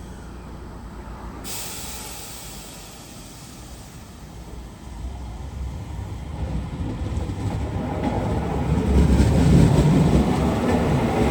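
A train approaching on the line, its rumble growing steadily louder from about five seconds in, with a faint rising whine near the end.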